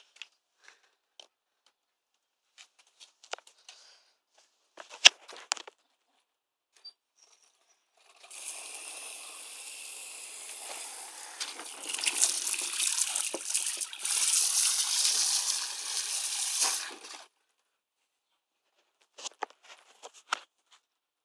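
Water running or splashing steadily for about nine seconds, getting louder partway through, then cutting off suddenly. Scattered light taps and footsteps come before and after it.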